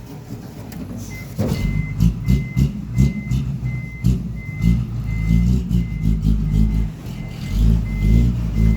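A truck reversing: its reversing alarm beeps about twice a second over the low, uneven running of the engine.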